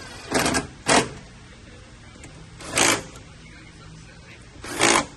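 Four short bursts of rapid mechanical clicking from a tool tightening fasteners, the bursts about a second or two apart.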